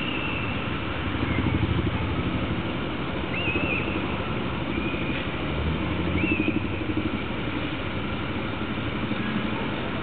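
A steady low engine rumble, swelling twice, with a few faint, short, high whistled bird calls over it.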